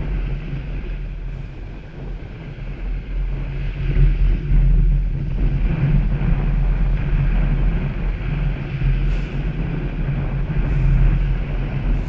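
Small waves breaking and washing up a sandy beach, with wind rumbling on the microphone.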